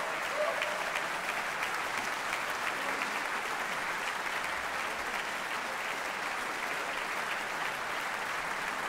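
Large audience applauding steadily, the dense clapping of many hands.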